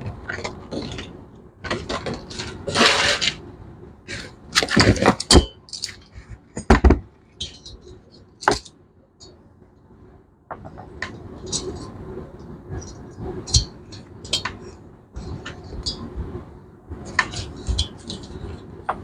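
Metal hand tools and parts clinking, knocking and scraping against a motorcycle cylinder head on a workbench, as the valve removal is set up. The sound is a string of separate sharp knocks with a couple of longer scrapes a few seconds in.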